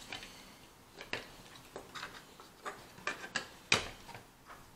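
Plastic Mega Bloks building blocks being handled and set down on a tabletop: a series of irregular sharp clicks and knocks, the loudest about three-quarters of the way through.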